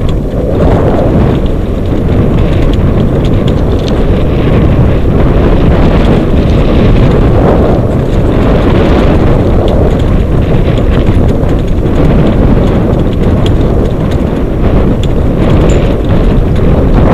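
A dog-drawn dryland rig rolling fast over a rough dirt trail, a steady loud rumble with scattered faint clicks, mixed with wind buffeting the microphone mounted on the rig.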